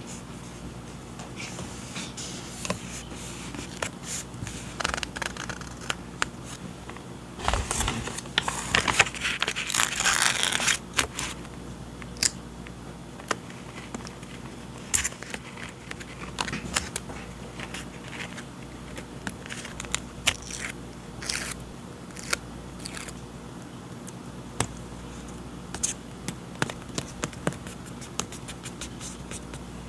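Paper journaling supplies being handled up close: scattered light taps and clicks, with a denser few seconds of scraping and rustling paper about a quarter of the way in.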